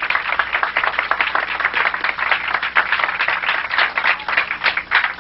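Audience applauding: many irregular claps.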